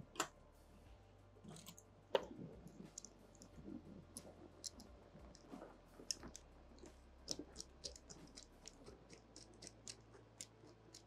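Faint scattered clicks and ticks of small metal hardware being handled, as a screw is started a few threads into a metal banding-strap clamp with a hand driver. Two sharper clicks come in the first two seconds.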